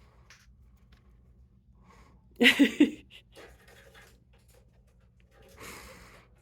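Two brief non-word vocal sounds: a short pitched burst about two and a half seconds in, then a breathy puff near the end.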